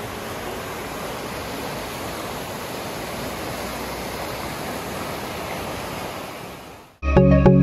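Fast-flowing mountain river rushing steadily over its bed, a continuous wash of water noise that fades out near the end, where music with a beat cuts in.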